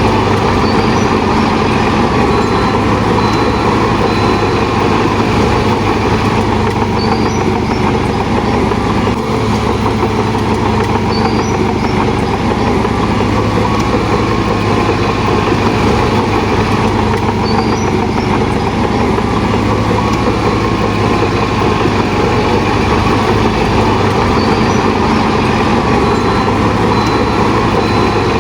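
Shantui DH17 bulldozer's diesel engine running steadily at working speed, with faint short high chirps now and then.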